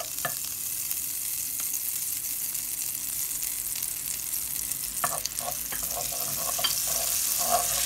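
Butter, oil and garlic sizzling in a hot nonstick frying pan, the sizzle growing a little louder near the end. A wooden spoon stirs through the fat in the second half, adding small scraping sounds.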